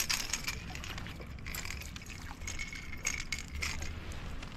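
Water splashing and trickling, with scattered small clicks and knocks.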